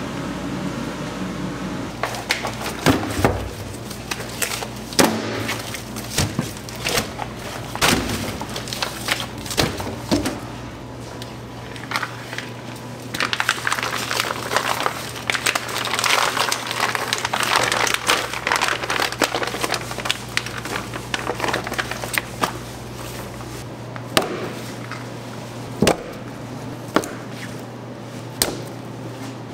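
Kitchen handling noises: a series of sharp knocks and clatters, and a few seconds of rustling plastic as vacuum-packed pork spare ribs are slit open with a knife, over a steady low hum.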